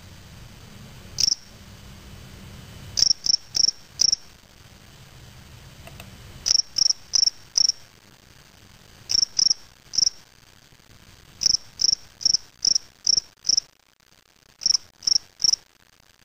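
Male spring field cricket (Gryllus veletis) singing: short, high-pitched chirps in runs of three to six, with pauses of a second or two between the runs.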